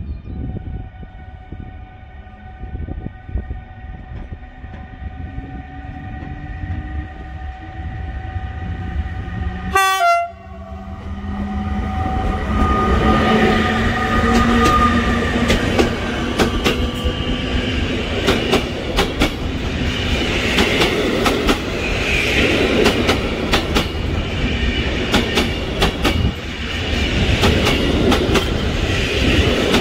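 PKP Intercity EU160 electric locomotive hauling passenger coaches out of the station and past, starting with a steady whine and one slowly rising tone. From about ten seconds in it gives way to the louder rumble of the train going by, with many sharp wheel clicks over the rail joints.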